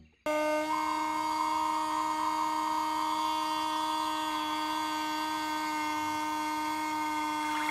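A small brushed DC motor switched on just after the start, settling within about half a second into a steady whine as it drives a miniature water pump through a rubber-band belt.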